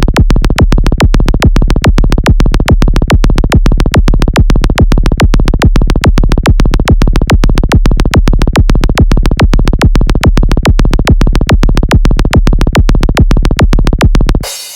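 Electronic dance music with a steady, fast kick-drum beat over a constant deep bass and synthesizer. The beat cuts off suddenly near the end, leaving a short fading tail.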